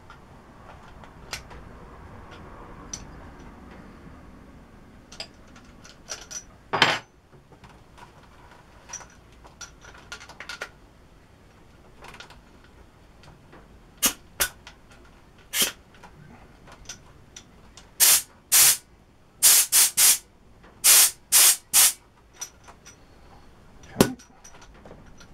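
Short blasts of compressed air hissing from a hand-held inflator gun fed by the Parkside 24-litre compressor's hose. One blast comes about seven seconds in, then about a dozen quick bursts follow in the second half, several in rapid succession.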